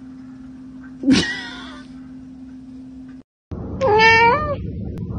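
Domestic cats meowing twice: a short, harsh meow about a second in, then, after a brief break, a clearer, longer meow that wavers in pitch about four seconds in.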